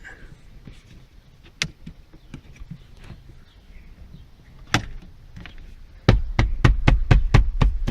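Plastic interior trim of a car's centre console being pressed and tapped home: a couple of single clicks, then about six seconds in a fast run of loud knocks, about five a second, as the panel's clips are snapped into place.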